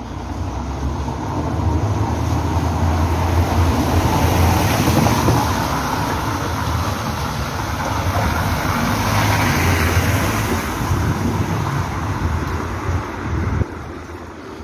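Two cars driving past on a wet paved street, their tyres hissing on the wet surface over a low engine hum. The sound builds over the first few seconds and drops off sharply near the end.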